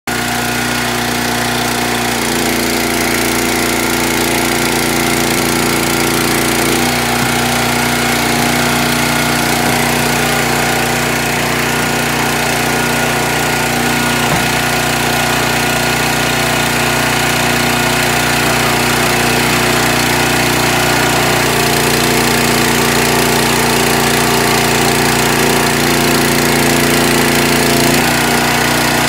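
Small gasoline engine of a tire doubling machine running steadily, its tone shifting a few times as the machine works.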